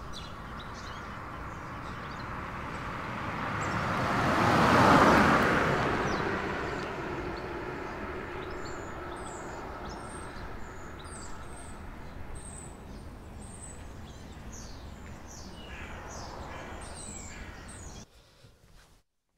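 Street ambience: a passing vehicle, its noise swelling to a peak about five seconds in and slowly fading. Small birds chirp in short high calls through the second half. The sound cuts off suddenly near the end.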